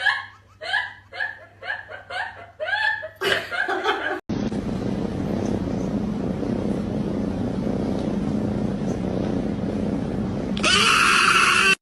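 Short, squeaky, hiccup-like vocal sounds repeating about twice a second. A few seconds in they cut off suddenly into a steady hiss with a low hum, which gets louder near the end.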